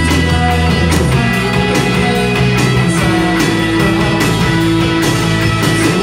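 Live rock band playing: electric guitars over a drum kit and held low bass notes.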